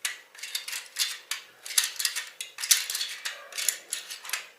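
KALE door lock being worked: an irregular series of sharp metallic clicks and short scrapes from the lock mechanism, which had started catching and clicking at the end of its opening travel.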